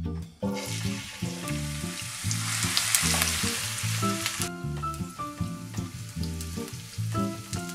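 Chopped onion sizzling in hot vegetable oil in a stainless steel frying pan while being stirred with a silicone spatula. The sizzle starts about half a second in, is loudest in the middle, and falls off sharply a little after four seconds.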